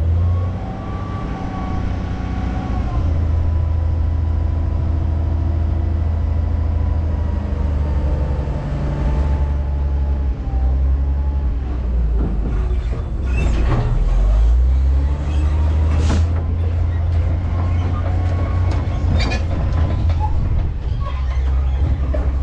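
Dump truck and end-dump trailer creeping along a gravel road while tailgate-spreading crushed stone: a steady low rumble of the running rig with a faint whine that slides down and back up. Scattered knocks and rattles come in the second half.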